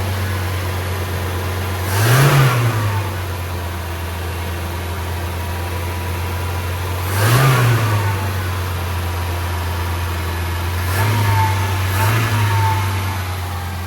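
The four-cylinder engine of a 1978 BMW E21 316, running again after 32 years laid up, idles fast with the choke still partly on. Four times the revs briefly rise and fall back, as the idle is being adjusted down.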